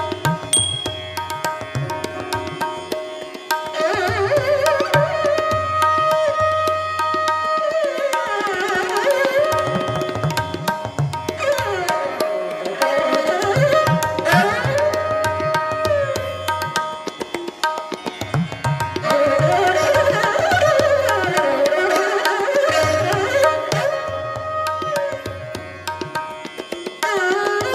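Indian classical-style instrumental background music: tabla drumming under a melody that slides between notes.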